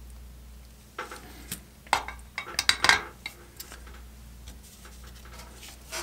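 Light metallic clinks and taps from soldering tools being handled and set down on a workbench, a quick cluster of them in the first half, then only a low steady background.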